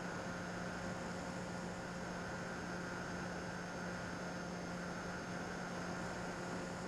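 Bixler 2 RC plane's electric motor and propeller running at a steady pitch with rushing airflow, heard from a camera mounted on the plane.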